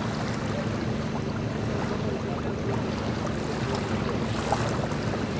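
An engine running steadily at low revs, a low even hum, with a single short knock near the end.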